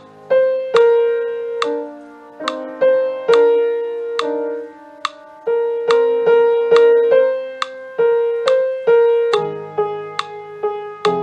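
Piano playing the chords of a choral piece, a new note or chord struck roughly twice a second, each ringing out and fading, with the upper melody line sounding loudest.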